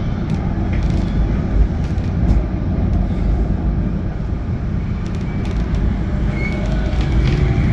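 GT6NU low-floor tram under way on the rails: a steady, loud rumble of wheels and running gear, with scattered faint clicks and a few faint whining tones near the end.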